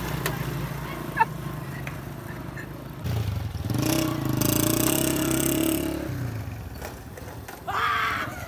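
Small motorcycle engine running as a motorcycle rides past, growing louder about three seconds in and fading out about six seconds in. A sharp click comes about a second in, and a short rising shout comes near the end.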